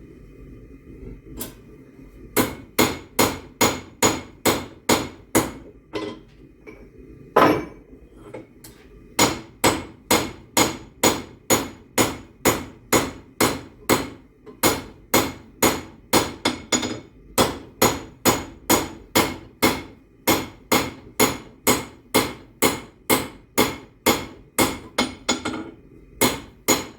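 Hand hammer striking hot rebar, forging it into a horseshoe: sharp, ringing blows at about two a second, with a short pause broken by one heavy blow. A steady low rush runs underneath.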